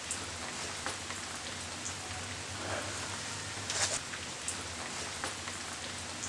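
Steady rain falling on wet sandstone, with scattered single drops striking close by and a brief flurry of them a little before the four-second mark.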